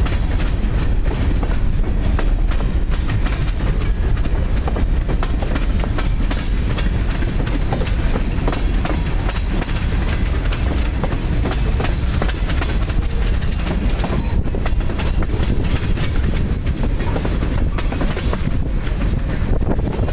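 Freight train cars, covered hoppers and tank cars, rolling past close by: a steady rumble of steel wheels on the rails with a rapid run of clicks and clacks as the wheels cross the rail joints.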